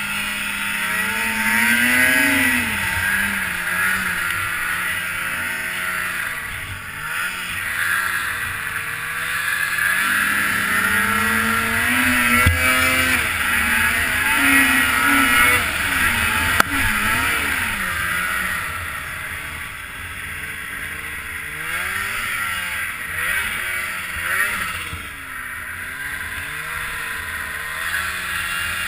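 Snowmobile engine revving up and down over and over under load in deep powder, over a steady hiss. There is one sharp click about two-thirds of the way through.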